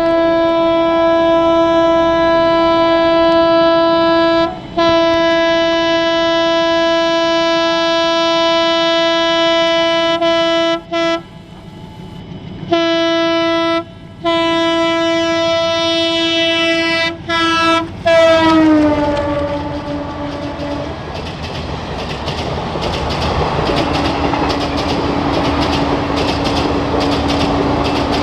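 WDM-3A diesel locomotive's air horn sounding long, loud blasts with a few short breaks as the express approaches at speed. The horn's pitch drops as the locomotive passes, about 18 seconds in, and the coaches then rush by with the wheels clattering over the rail joints.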